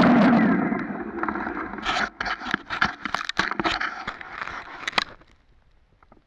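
An electric motor, by the look of it a corded electric snowblower, spins down and falls silent in the first moment. Then comes a run of irregular scrapes and knocks close to the microphone, which stops about five seconds in.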